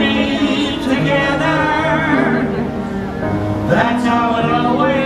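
Fireworks-show soundtrack music with singing, a melody wavering over sustained chords.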